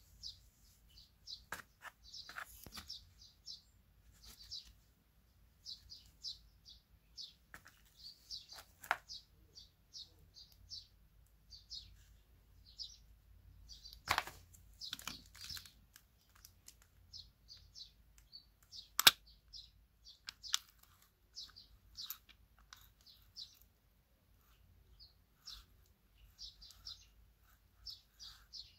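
Small birds chirping in short, high, repeated calls, with a few sharp clicks and knocks scattered between them, one louder click about two-thirds of the way through.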